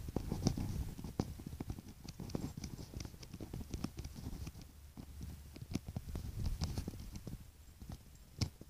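Footsteps of a person walking, about two steps a second, with light clicks and a low rumble from a hand-held phone being carried.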